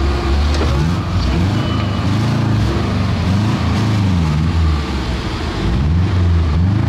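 Off-road 4x4's engine revving up and dropping back several times, its pitch rising and falling unevenly under changing throttle.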